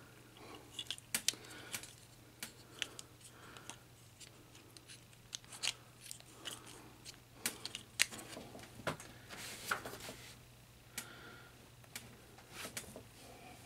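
Plastic joints and parts of a Transformers Studio Series Leadfoot action figure clicking and snapping as it is handled and transformed. The clicks are sharp and irregular, of uneven loudness, with the loudest about eight seconds in.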